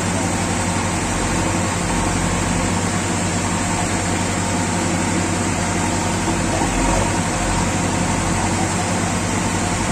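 JCB 3DX backhoe loader's diesel engine running steadily while the backhoe digs and lifts a bucket of sand.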